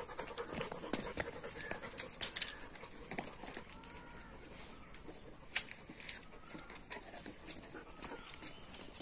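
Faint outdoor yard sounds: scattered light clicks and taps, most of them in the first couple of seconds, with a few faint bird chirps.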